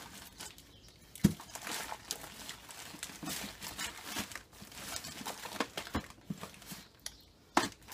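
Gift packaging being rustled and crinkled while packages are handled and sorted, with a sharp knock about a second in and another near the end.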